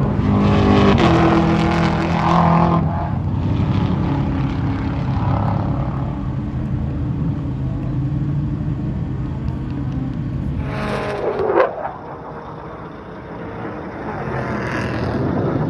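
Jet fighter engines roaring during a fly-by, loudest in the first few seconds. About 11 seconds in, a sharp whine sweeps quickly downward in pitch as a jet passes, the noise drops, then the roar builds again near the end.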